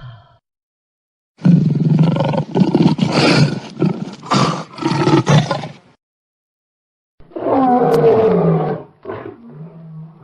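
Lion roaring: a run of about six pulsing grunts over some four seconds, then, after a pause of about a second, a second, shorter call that rises and falls in pitch.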